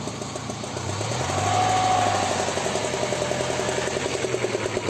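Car engine being revved and running with a rapid crackling, misfire-like sputter. The quiz gives the cause as mistimed ignition or a spark plug at the end of its life. It rises in level for about two seconds, then eases and holds.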